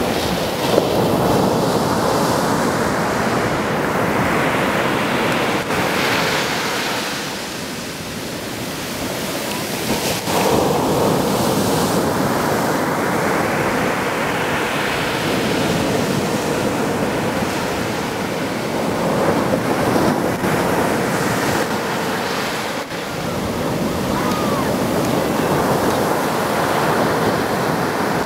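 Ocean surf breaking and washing up a sandy beach. The rush of water surges and eases roughly every ten seconds as each wave comes in.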